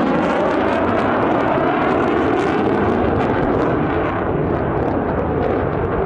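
Military jet flying over the airfield, its engine noise a loud, steady rush, with a pitch that wavers in the first second or so.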